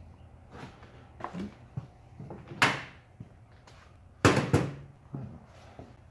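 Short knocks and clatters from hand work on the rear suspension parts, about half a dozen in all. The loudest comes about two and a half seconds in, and a close pair follows a little past four seconds.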